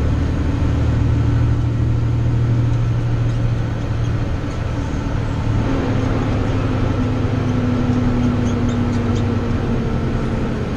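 Snow-plow truck's engine and running noise heard from inside the cab while driving: a steady low drone, its note shifting slightly about six seconds in and then easing down.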